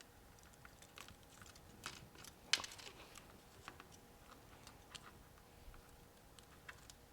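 Scattered light clicks and taps of small tools and parts being handled while an iPhone X is being worked on, with one sharper click about two and a half seconds in, over a faint steady hum.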